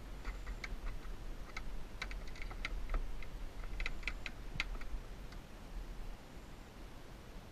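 Irregular light clicks and taps, bunched around two and four seconds in and dying away after about five seconds, as a hard-bodied surface lure and its treble hooks are worked free from a bass held by the jaw.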